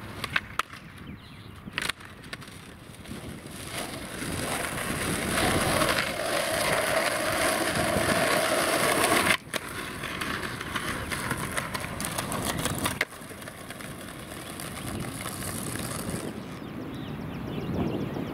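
Skateboard wheels rolling on asphalt and concrete, the rolling noise building up and then breaking off sharply twice, about nine and thirteen seconds in. A few sharp clacks of the board hitting the ground come near the start.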